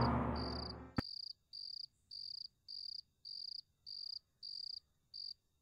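A cricket chirps in a steady rhythm, about two short chirps a second. At the start a dark, ominous music cue is fading out, and it ends about a second in with a sharp click.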